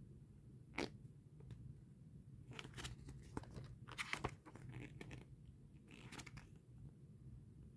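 Pages of a paperback manga volume being turned and flicked by hand: faint paper rustles in about six short bursts over a low steady hum.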